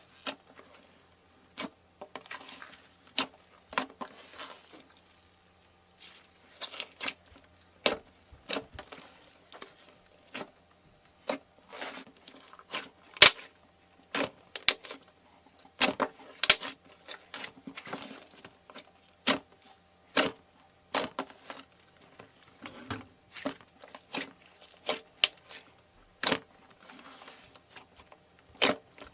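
Crunchy things being crushed by hand: an irregular string of sharp cracks and snaps, some much louder than others, with short crackling, crumbling rustles between them.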